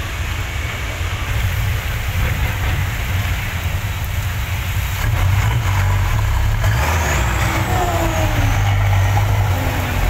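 Diesel engine of a ten-wheel truck pulling away under heavy throttle, growing louder about five seconds in. A high whistle rises and falls near the end.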